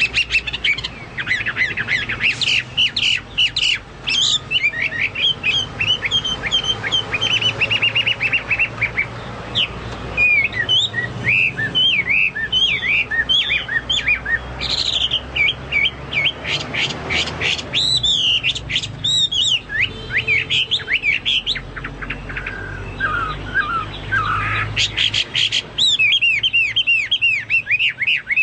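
Chinese hwamei in full song: a continuous run of varied whistled phrases and fast trills, with a few lower notes about two thirds of the way through.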